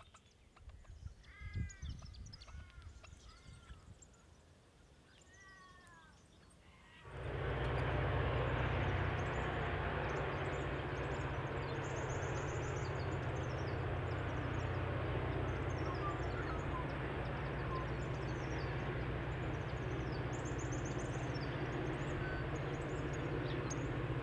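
Birds calling over a quiet background. About seven seconds in, a steady heavy rumble starts suddenly: the twin EMD 645 turbocharged diesels of two 81 class locomotives working hard as they drag a loaded grain train up the grade, with birds chirping above.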